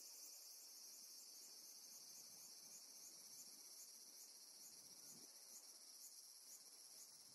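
Faint, steady, high-pitched insect trilling, with a regular pulse about twice a second.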